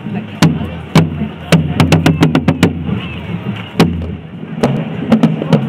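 Marching side drums beating a march rhythm: sharp drum strokes at uneven spacing, with quick clusters of strokes about two seconds in, over a low rumble that fades about four seconds in.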